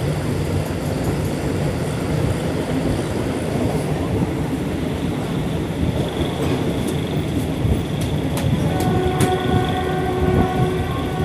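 Passenger train running, with a steady rumble and wheel clatter on the rails. About eight seconds in, the train's horn begins to sound one long, steady chord.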